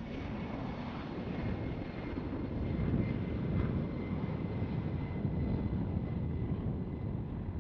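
C-17 Globemaster III's four turbofan engines at takeoff power as the jet lifts off and climbs away: a steady deep rumble with a faint high whine, loudest about three seconds in.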